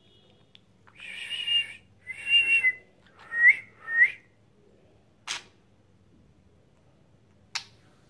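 Human whistling: four short whistled notes, the first two breathy and the last two quick upward slides. Two brief sharp clicks follow a few seconds later.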